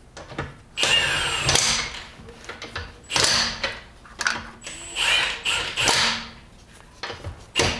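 Cordless power tool spinning the wheel's lug bolts in, in several short bursts with a whine that rises and falls.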